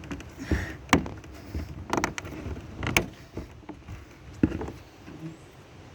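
Vinyl glazing strips being pressed and snapped into a window frame by hand: four sharp plastic knocks and clicks about a second apart, over faint handling noise.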